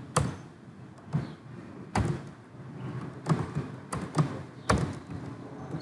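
Typing on a computer keyboard: irregular keystroke clicks, a couple each second, some struck harder than others.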